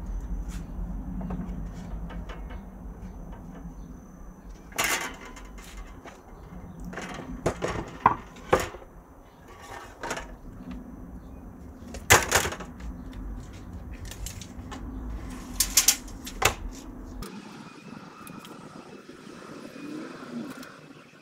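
Handling noise from a wooden plank and tools on a workbench: a series of sharp knocks and clatters as the board is set down and moved, and a tape measure is laid along it.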